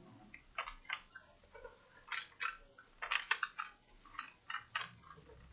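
Light, irregular clicks and taps of plastic laptop parts being handled and fitted back together during reassembly of a Samsung RV511 laptop.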